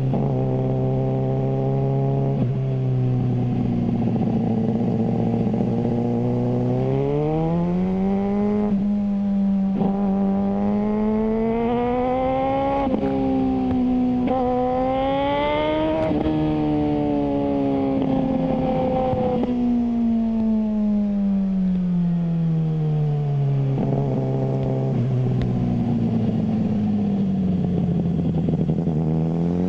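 Suzuki GSR600 inline-four engine through a GPR Ghost aftermarket exhaust, ridden. It pulls up through the gears with several sudden pitch drops at the shifts, then the revs fall steadily for several seconds as it slows, and it picks up again near the end.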